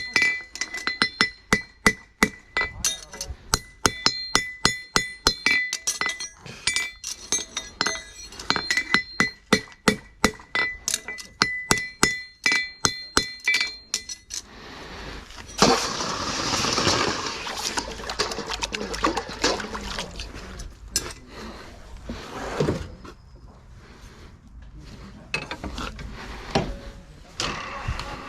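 Farrier's hammer striking a steel horseshoe on the anvil, a quick run of ringing blows at about two to three a second. About halfway through the blows stop and a rough, uneven hissing noise follows.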